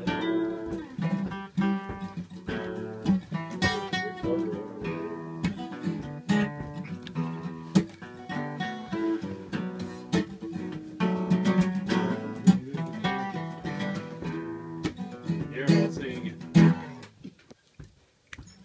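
Acoustic guitar playing an instrumental introduction with plucked and strummed notes, then falling quiet for about a second near the end.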